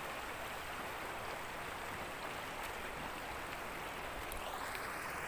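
Hill river flowing over stones: a steady rush of water.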